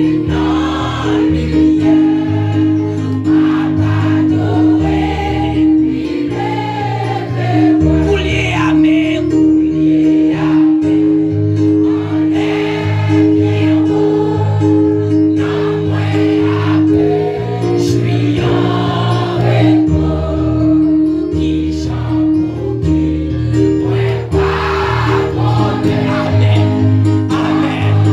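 Gospel worship song: a man sings into a microphone over held chords and a bass line, with other voices singing along.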